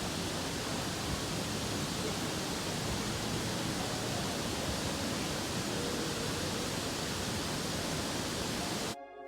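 Waterfall rushing: a steady, even roar of falling water that cuts off abruptly near the end.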